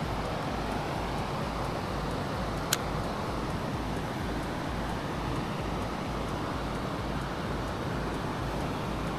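Steady outdoor rushing noise with one sharp click nearly three seconds in.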